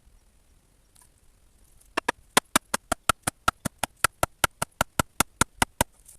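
A quick, evenly spaced run of about twenty sharp clicks, about five a second, starting about two seconds in and stopping near the end.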